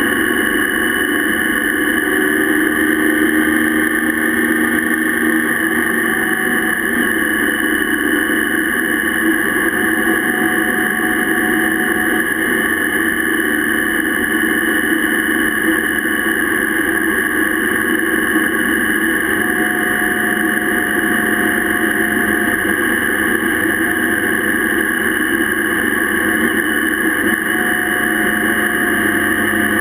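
Motorcycle engine running steadily at road speed, mixed with wind and tyre noise picked up by a bike-mounted camera.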